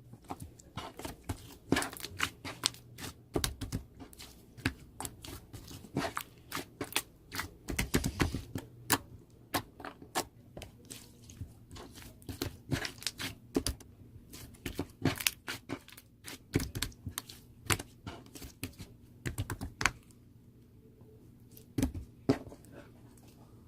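A dense, irregular run of sharp clicks and crinkling, several a second, thinning out near the end with a couple of louder clicks.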